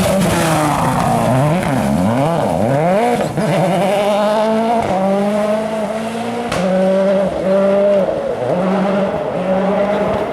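Rally car engine revving hard, rising and falling in quick sweeps through gear changes, then holding steady revs broken by several brief lifts off the throttle, with a sharp crack about six and a half seconds in.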